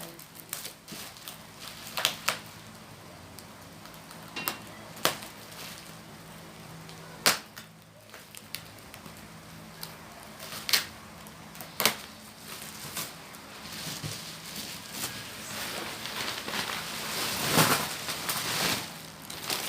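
A TV's packaging being unwrapped and handled: scattered sharp clicks and knocks, then rustling and crinkling that grows louder near the end.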